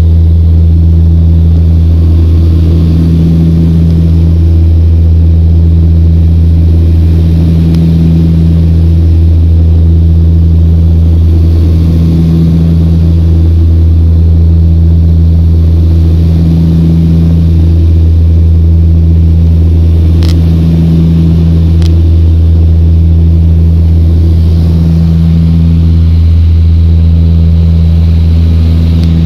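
Turboprop aircraft's engines and propellers droning steadily, heard from inside the cabin: a loud low hum that swells and fades slowly about every four seconds. Two brief clicks come about two-thirds of the way through.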